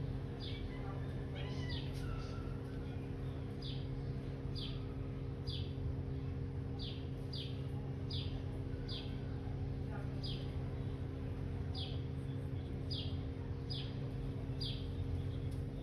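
A small bird chirping repeatedly: short, high, falling chirps about once a second over a steady low hum.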